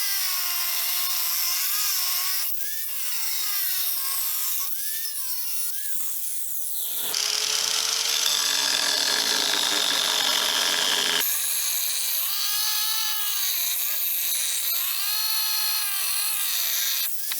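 Angle grinder with a diamond blade cutting tile and stone. Its motor whine dips and recovers in pitch as the blade loads. For about four seconds midway it gives way to a rougher, noisier grinding.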